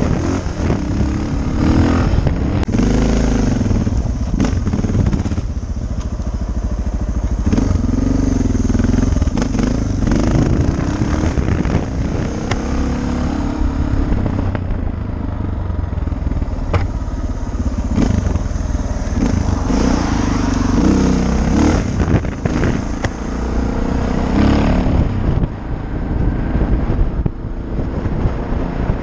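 2014 Suzuki DR650SE's single-cylinder four-stroke engine running through an FMF Powerbomb header and FMF exhaust under way on the road, the engine note rising and falling as the rider opens and closes the throttle. Wind noise rumbles on the microphone underneath.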